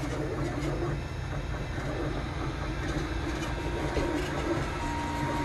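MakerBot 3D printer running a print: its stepper motors whine in steady tones that change pitch as the print head moves, over a constant fan hum. A new, higher motor tone joins near the end.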